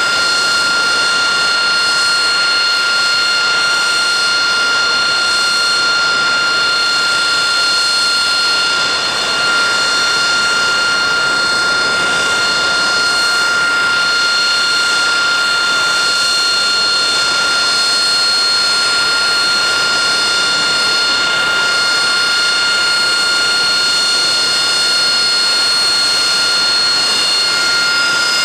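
Rolls-Royce Pegasus vectored-thrust turbofan of an AV-8B Harrier II Plus running at a steady setting: a high, unchanging whine over a steady rush of jet noise.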